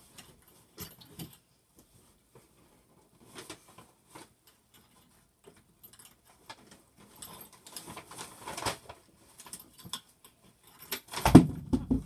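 Rummaging through things on a shelf: scattered light clicks and rustles of objects being moved, busier in the second half, with one loud thump near the end.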